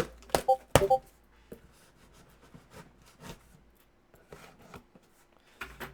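Cardboard shipping and shoe boxes being handled and opened: three sharp knocks within the first second, then light rubbing, scraping and soft clicks.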